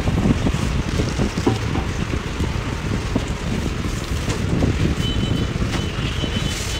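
Thin plastic fish bag rustling and crinkling as it is handled and opened by hand, over a steady low rumble of wind noise on the microphone.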